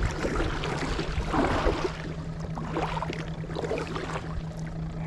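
Double-bladed kayak paddle strokes, the blades dipping and pulling through calm water in about three splashy swishes, over a steady low hum.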